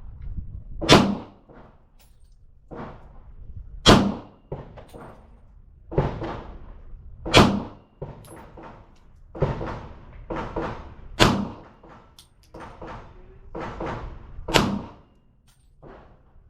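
Gunfire at an outdoor shooting range: a long, irregular run of shots, about five of them much louder than the many fainter ones around them, each followed by a short echo.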